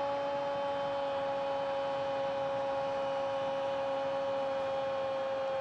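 A football commentator's long drawn-out goal call, one shouted 'Gooool' held on a single high note without a break and sinking very slightly in pitch.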